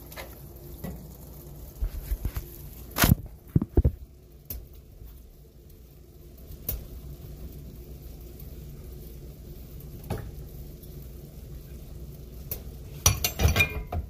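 Metal tongs knocking against a cast-iron skillet of lo mein, a few sharp knocks about three to four seconds in, over a steady low hum. Near the end, a quick run of clattering and clinking from utensils on pots and dishes.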